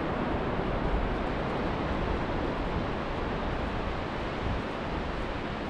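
Steady rush of surf breaking on the beach, mixed with wind buffeting the microphone in an uneven low rumble.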